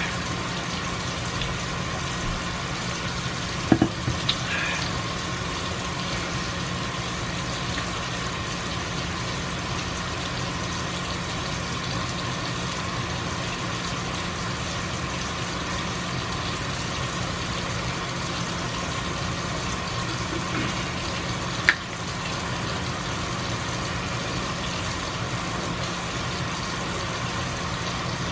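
A steady mechanical hum, with a few sharp clicks about four seconds in and a single click a little past twenty seconds in.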